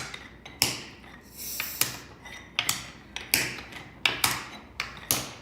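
Wooden beads clacking against each other as they are moved and set down: sharp, irregular clacks at about two a second, each with a short ring.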